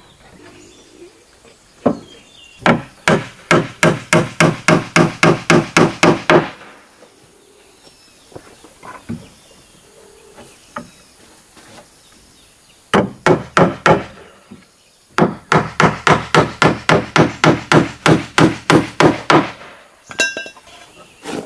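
Hammer driving nails through wooden roof planks into a wooden pigeon house: runs of quick, evenly spaced strikes, about four a second, with pauses between the runs.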